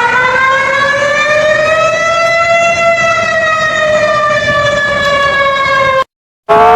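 Emergency warning siren wailing: one loud tone that rises to a peak and then slowly falls. It cuts off abruptly about six seconds in. After a brief silence a second wail begins rising at the very end.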